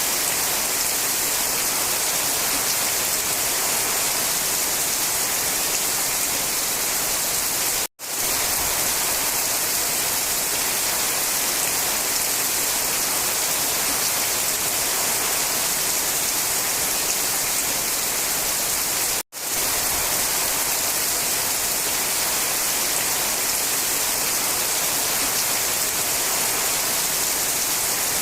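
Steady rain falling, an even hiss heavy in the high end with no separate drops standing out. It cuts to silence for an instant twice, about 8 and 19 seconds in.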